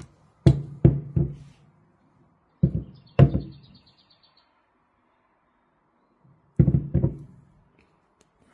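Hollow knocks as an ESB 1.10SD4 car subwoofer is handled on a wooden tabletop: three near the start, two around three seconds in, and two more near the end, each with a short low ring.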